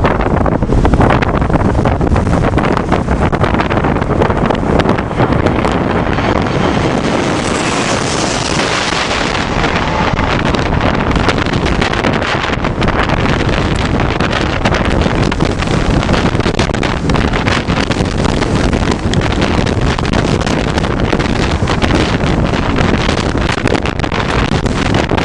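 Loud, gusting wind buffeting the microphone, with a swell of higher hiss about seven seconds in.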